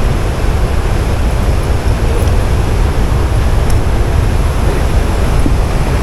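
Steady rushing of water released through a dam spillway, loud and even, with a heavy low rumble.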